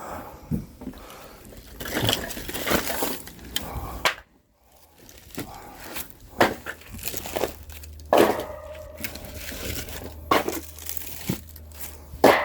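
Irregular knocks and clatter of firewood logs being handled and dropped during unloading, with rustling between the hits.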